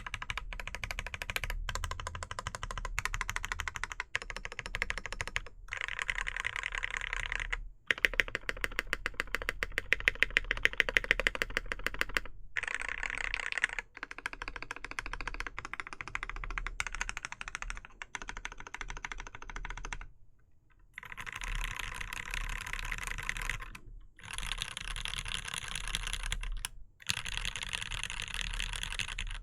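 Typing on a Smith + Rune Iron 180 mechanical keyboard with lubed and filmed Gateron Ink switches, an aluminium plate, no case foam and GMK keycaps: dense runs of clicky-clacky keystrokes broken by brief pauses. Around eight seconds in comes a run of louder, evenly spaced strokes lasting a few seconds.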